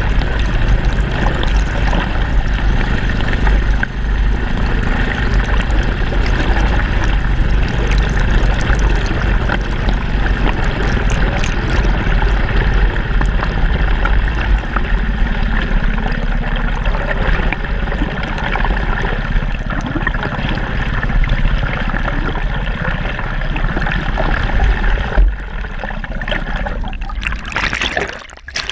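Steady, muffled rush of water against an underwater camera beneath a small boat, with a heavy low rumble. The noise thins out and dips briefly shortly before the end.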